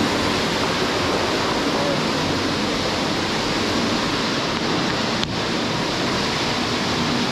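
Steady rushing noise, with one short click about five seconds in.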